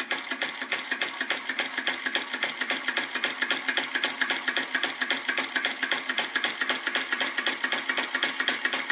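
Retrol VE-01 crossbeam vacuum engine (flame licker) running with an even, rapid ticking of several beats a second as its valve clacks and the flame is drawn into the cylinder. It is turned down to a very slow run, close to stalling.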